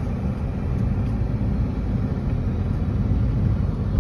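Steady low rumble of a car moving slowly, heard from inside the cabin: engine and road noise.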